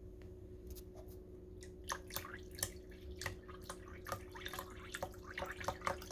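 Water dripping and splashing over a steady low hum. The drips are sparse at first and come thick and fast from about two seconds in.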